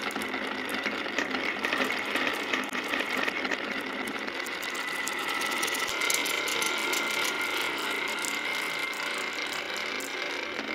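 Glass marbles rolling down a carved wooden zigzag marble-run track, a continuous rattle of many small clicks as they knock against the track walls and each other.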